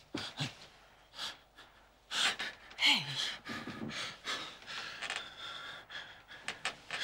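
A woman gasping and breathing hard in her sleep, louder and quicker from about two seconds in, with a short falling moan about three seconds in: the panicked breathing of a nightmare.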